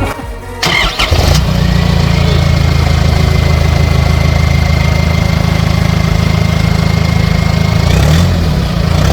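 Turbo-diesel engine, the Nissan Navara D22's ZD30, cranking and catching in the first second or so. It then idles steadily with a thin high whine over it, and the revs rise and fall briefly near the end.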